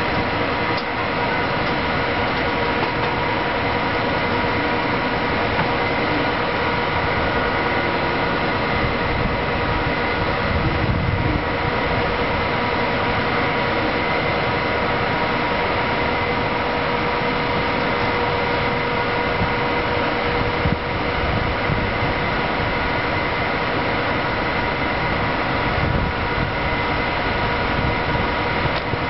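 Electric passenger locomotive standing still with its cooling fans and auxiliary machinery running: a steady whirring hum with a high whine held at one pitch.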